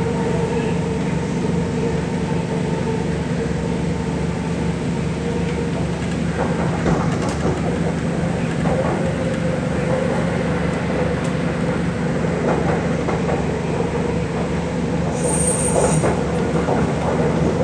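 MTR Kwun Tong Line C-train running at speed, heard from inside the carriage: a steady motor hum over wheel-on-rail rumble, with short squeaks and rattles from about six seconds in.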